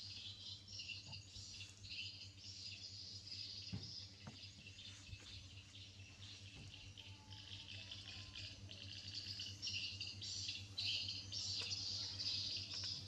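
Steady high-pitched chorus of chirping insects, pulsing and swelling louder about ten seconds in.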